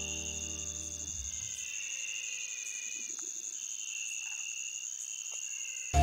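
Night rainforest chorus: a steady high insect trill, with other calls wavering beneath it. A held chord of soft background music fades out about a second in.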